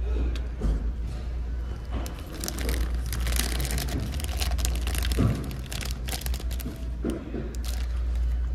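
Thin plastic apple-slices bag crinkling as it is handled and a slice is pulled out. A dense run of crackles starts about two seconds in and lasts until near the end, over a low steady hum.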